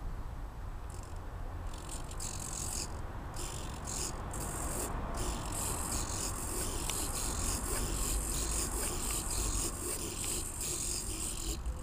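Micro hobby servos buzzing and grinding as they tilt a plywood pan-tilt mount, with a high gear noise that keeps cutting in and out as the servos start and stop.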